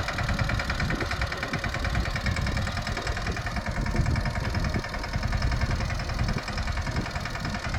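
Mahindra Yuvraj mini tractor's single-cylinder diesel engine running steadily, with an even, rapid chugging beat.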